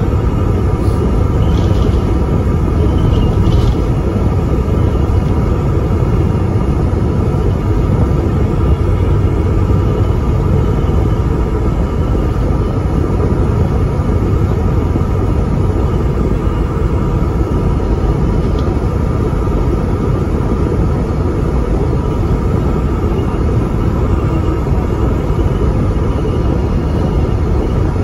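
Volvo ALX400 double-decker bus cruising at speed, heard from inside on the upper deck: a steady low rumble of engine and road noise with a faint steady whine on top.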